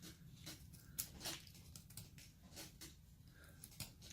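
Hand carving tool shaving basswood in short, faint strokes, about half a dozen scattered cuts, as the carved figure's body is shaped.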